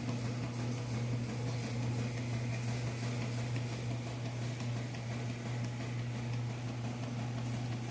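Three top-loading agitator washing machines running a wash cycle together: a steady low motor hum over a constant churning noise.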